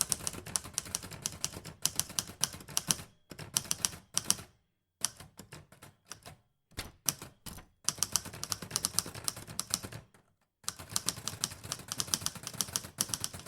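Typewriter keys clacking in rapid runs of typing, broken by brief pauses.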